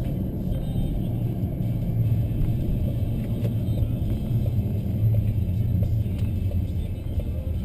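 Steady low rumble of a vehicle's engine and tyres heard from inside the cabin while driving slowly on a snow-covered road.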